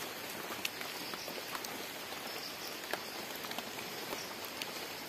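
Steady light rain falling on leaves and forest ground, with scattered single drips ticking through it.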